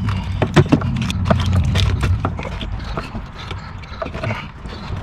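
Wiring-harness connectors being pushed into a 2007 Hummer H3's replacement PCM and latched: a run of short plastic clicks and knocks. A low rumble runs under them for the first two seconds or so.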